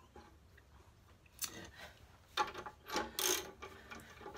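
A few short metal clicks and scrapes as a socket ratchet wrench is handled and fitted onto the winding screw of a steel scissor box lift, starting about a second and a half in.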